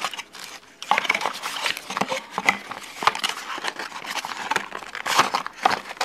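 Cardboard packaging being handled by hand: a cardboard insert and flap pulled and folded, with irregular scrapes, taps and crinkles of plastic wrap.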